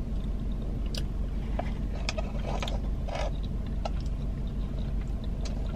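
A plastic spoon scraping and clicking in a plastic cup of thick ice cream, in scattered short strokes, over a low steady hum in a car's cabin.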